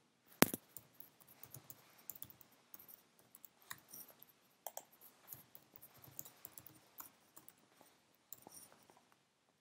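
Computer keyboard being typed on in quick, irregular faint clicks as a password is entered twice, with one sharper, louder click about half a second in.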